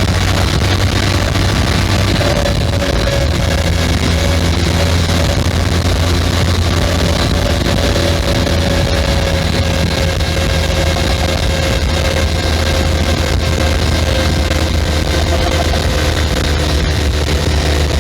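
Benelli 502C's 500 cc parallel-twin engine with its stock exhaust, running at a steady pace under way. The low exhaust note stays even throughout, and a faint whine falls slowly in pitch from a few seconds in until near the end.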